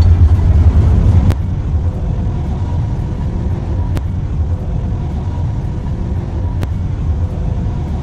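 A low, steady rumble of outdoor background noise, louder for the first second or so. Three single sharp clicks of a metal fork against a plate fall a few seconds apart.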